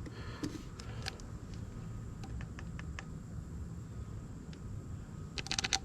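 Scattered faint clicks and light taps, with a quick run of sharper clicks near the end: small parts being handled while motorcycle engine oil is topped off.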